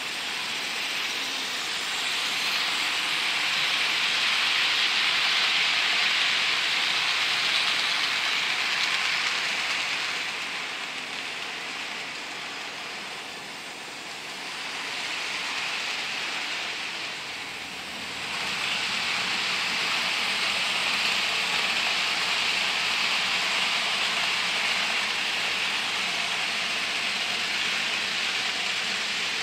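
HO scale model freight train rolling along the track: a steady, hissing rattle of wheels on rail. It dips in the middle and comes back louder about two-thirds of the way through.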